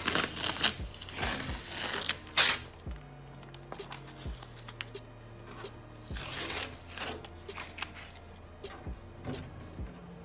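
Masking tape and paper being peeled off a freshly spray-painted computer case door, in ripping, crinkling bursts with small clicks between them; the loudest rip comes about two and a half seconds in, and another run of rips about six seconds in.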